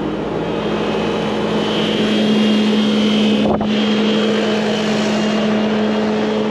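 Diesel engine running steadily at a raised idle while warming up after a cold start.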